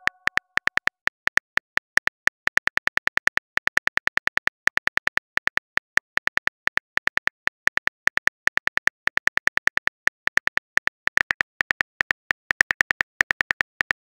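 Simulated phone-keyboard typing clicks from a texting-story app, a rapid run of short taps at about five a second with small uneven gaps as a message is typed out letter by letter.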